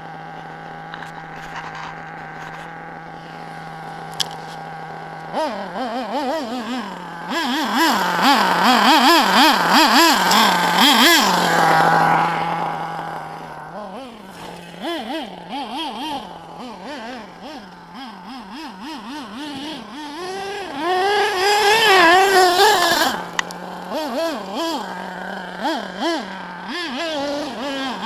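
Single-cylinder nitro engine of an HPI Trophy Truggy 4.6 RC truck. It idles steadily for the first few seconds, then revs up and down in repeated throttle blips, with two longer high-revving runs, one about a third of the way in and one near the end.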